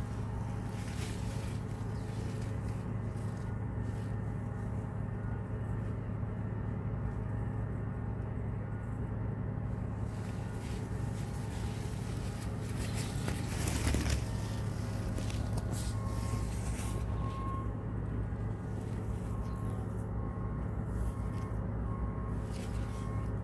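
A steady low machine hum runs throughout, with a brief brushing noise about halfway through.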